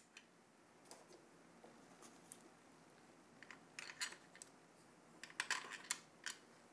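Small cooler mounting spacers being pushed onto the threaded backplate bolts around a CPU socket: faint scattered clicks and clinks, with a cluster of sharper clicks about halfway through and another near the end.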